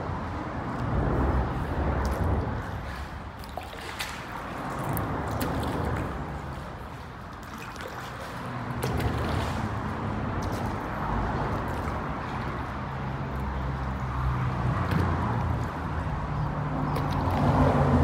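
Water sloshing, trickling and dripping from paddle strokes around a kayak and paddleboards, with a few light clicks and a low rumble that comes and goes.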